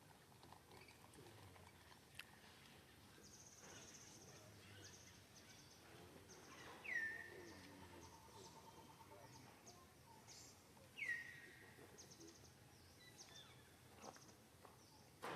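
Quiet outdoor ambience broken twice by a short whistle-like animal call that drops in pitch and levels off, about four seconds apart, with faint high, fast chirping in the background.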